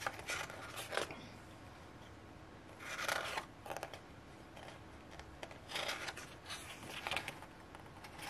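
Pages of a glossy photobook being turned by hand, a short paper swish with each turn, several turns a second or two apart.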